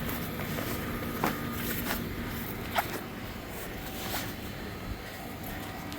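A few short rustles and scuffs from handling the folded polyester canopy fabric of a pop-up gazebo, over a steady low background hum.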